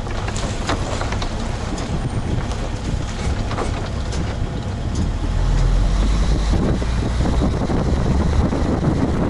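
Volvo EW60E wheeled excavator's diesel engine running under working load, heard from inside the cab, with scattered short knocks and scrapes; the engine comes up in level about halfway through.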